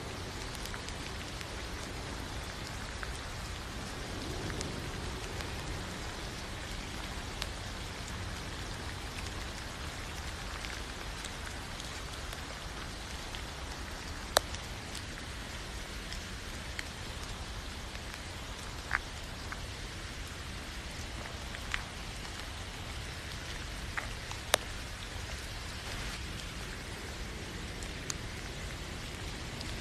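Steady rain falling, an even hiss with a low rumble beneath it, and now and then a single heavier drop striking with a sharp tap, the loudest about halfway through and about three-quarters through.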